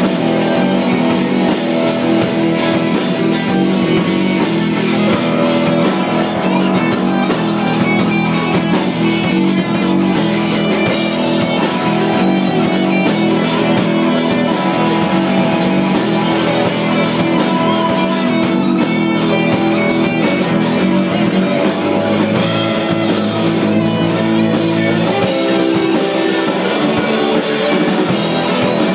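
Live rock band playing a song: two electric guitars, electric bass and a drum kit, with a steady, even drum beat.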